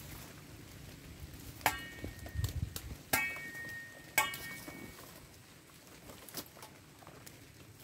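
Machete chopping cassava stalks: three sharp chops, each followed by a short metallic ring from the blade, then a lighter chop near the end.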